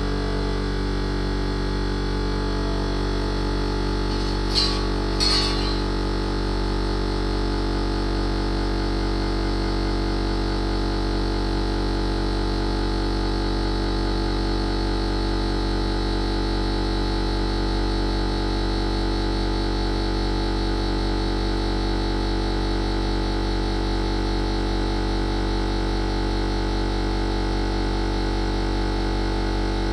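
Steady synthesizer background music with sustained held tones, broken about five seconds in by two short hisses.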